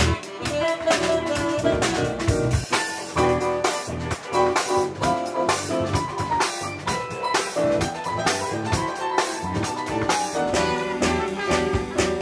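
Jazz band music with a drum kit keeping a busy beat.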